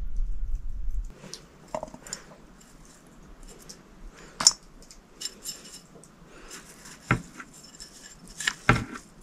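Metal dishes and utensils clinking and knocking now and then, three sharp knocks standing out. A low rumble in the first second stops abruptly.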